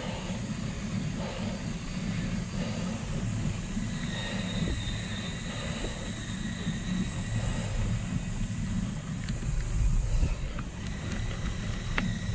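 Steady low rumble and rushing noise, like wind on an open-air microphone, with a high buzz above it that swells and fades every second or so.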